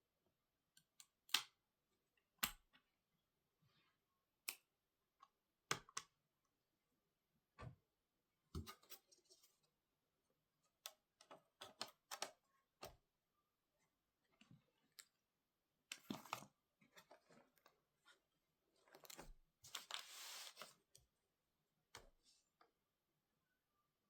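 Scattered light clicks and taps with a few brief scrapes, from small tools and laptop parts being handled during repair work on a MacBook Pro; the longest scrape comes near the end.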